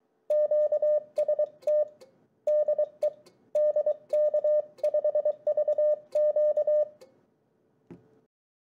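Morse code: a single mid-pitched beep keyed on and off in quick dits and dahs, in groups for about seven seconds. A short low thump follows near the end.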